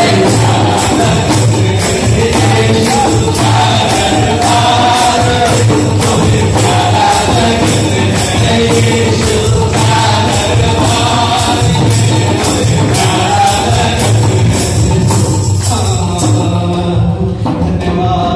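Group singing a qawwali-style devotional song led by a male voice, over the steady beat of a two-headed barrel drum, with hand clapping.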